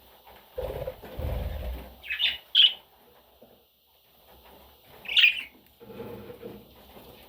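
Pet budgerigar giving three short, sharp chirps, two close together a little after two seconds and one near five seconds, after a burst of low rustling.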